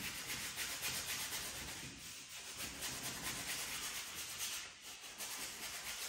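Flat paintbrush scrubbing oil paint onto a stretched canvas: a continuous scratchy rubbing made of many quick back-and-forth strokes.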